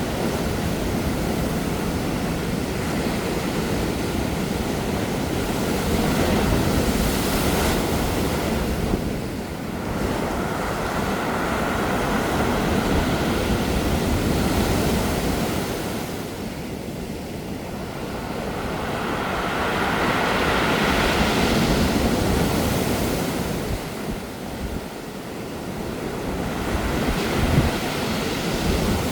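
Sea waves breaking on a pebble beach and draining back, rolling the pebbles over one another. The surf swells and fades every six or seven seconds.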